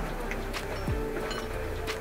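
Background music: a deep falling bass beat about once a second under a held tone, with a couple of light clicks.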